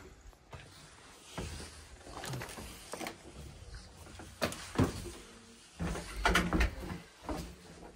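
A door being opened and shut: a couple of sharp knocks about halfway through, then a cluster of rattling knocks a second or so later.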